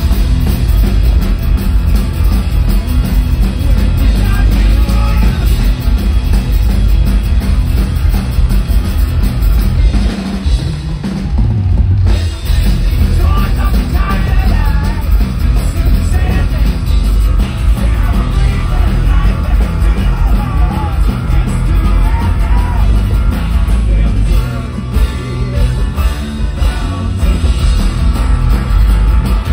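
Live rock band playing loudly through a festival PA: acoustic guitar, banjo, bass and drums, with some singing. The music thins briefly about ten seconds in, then comes back in full.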